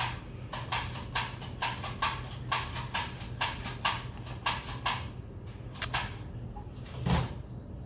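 A quick run of light clicks and taps, several a second for about five seconds, then a few scattered clicks and a dull bump near the end.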